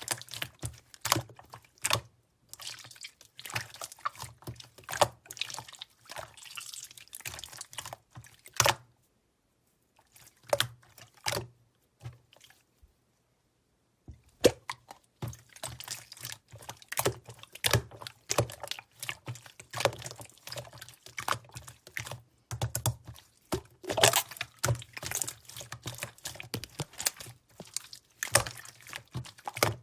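Hands squishing and poking a soft white slime, giving a rapid run of wet clicks and squelching pops. The sounds stop for a few seconds about a third of the way through, apart from two brief squelches, then resume.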